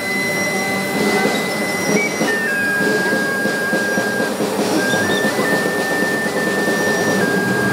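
Processional band playing a funeral march (marcha fúnebre) over the steady noise of a large crowd, with a high, thin note held and stepping between a few pitches.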